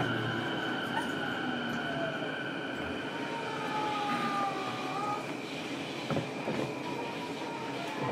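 JR East E233-series electric train running, heard from inside motor car MoHa E233-1268: a steady rumble of wheels on rail with high steady whines, and a fainter tone that slides down and back up about halfway through.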